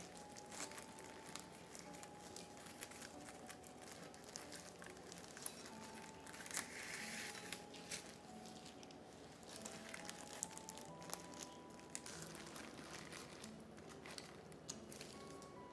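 Faint crinkling and crackling with scattered sharp ticks, like wrapping being handled, over soft background music playing a simple melody.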